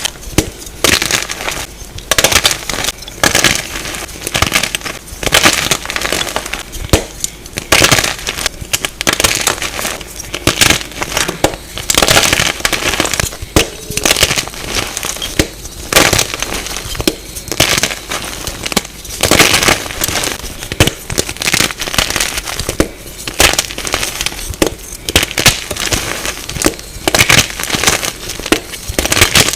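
Plain Jane gym chalk blocks being crushed and crumbled, a dense, irregular run of dry crunches and crackles, played at double speed.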